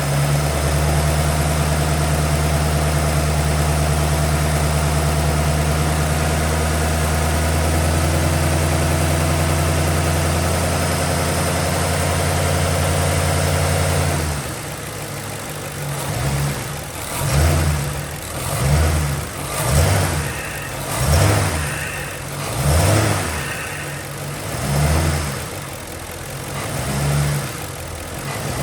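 A 2007 Ford Crown Victoria's V8 held steady at raised revs, then, about halfway through, dropping back to idle and blipped in a series of short revs, roughly one every second and a half. The revs are meant to bring out a passenger-side rattle that shows only when the gas is pressed.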